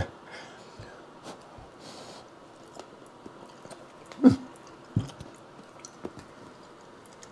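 A person eating a hot piece of roasted sweet potato: faint chewing and small mouth clicks, with a short breathy puff about two seconds in and a brief voiced grunt a little after four seconds.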